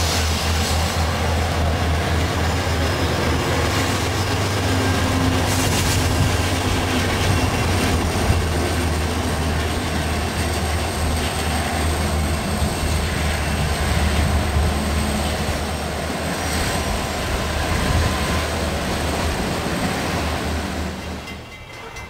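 Norfolk Southern GE Dash 9-40CW diesel locomotive, with a Union Pacific unit trailing, rolling slowly past with a steady, deep engine rumble and the rolling noise of the wheels on the rails. The sound drops away sharply near the end.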